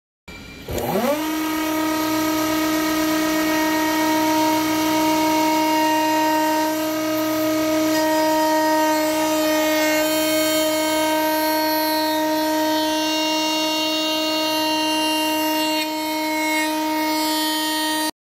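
Router motor spinning up, its whine rising quickly in pitch, then running at a steady high pitch while a bearing-guided bit cuts along the edge of birch plywood. The sound cuts off suddenly near the end.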